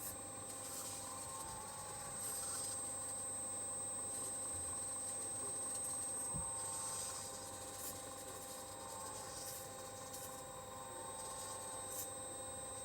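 Small electric motors whining faintly, rising and falling in pitch a few times, over a steady electrical hum.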